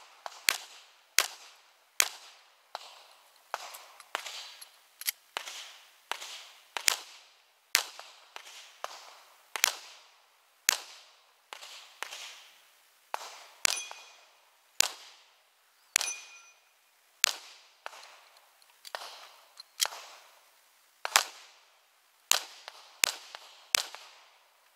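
Semi-automatic pistol fired in a long string of single shots, roughly one to two a second with short pauses between groups. Each shot is a sharp crack with a brief echo.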